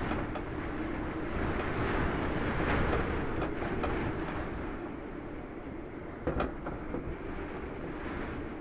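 Steady low rumble of wind ambience with a faint knock about six seconds in.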